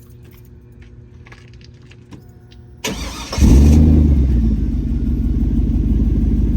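Chevrolet Silverado's 4.8 L LS V8 warm-started: after a few light clicks, the starter cranks briefly about three seconds in, the engine catches with a loud flare, then settles into a steady idle through a modified exhaust with a dual tip.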